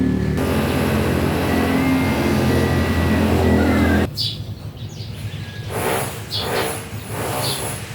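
A motor running steadily, cutting off suddenly about four seconds in. Afterwards birds chirp a few times.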